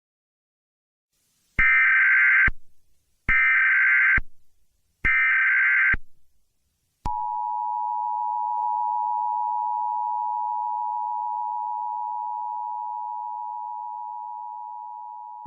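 Emergency Alert System header: three short, screechy digital data bursts of the SAME header, then the EAS attention signal, a steady two-tone hum (about 853 Hz and 960 Hz together) that starts with a click about seven seconds in and slowly fades over its last few seconds.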